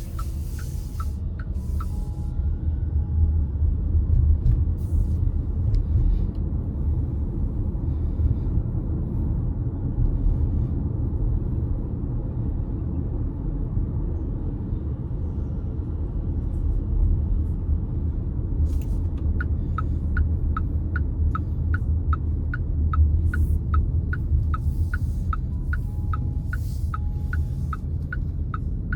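Car interior while driving: a steady low rumble of road and engine noise. For the last ten seconds or so, a turn-signal indicator ticks about three times a second.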